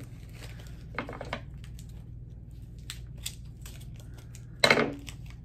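Scattered small clicks and rustles from handling artificial hydrangea stems and removing their plastic price tags, with one louder, brief sound near the end.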